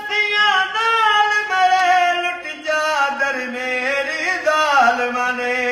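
An elderly man singing a noha, a devotional lament, in a solo unaccompanied voice. He holds long wavering notes that step down in pitch, with a slide down just before five seconds in, and ends the phrase on a low held note.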